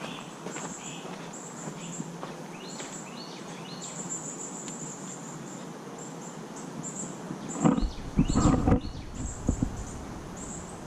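Outdoor garden ambience of insects buzzing in a high, pulsing drone, with a few short bird chirps. Near the end, a loud low rumble for about a second and a half, like wind buffeting the microphone.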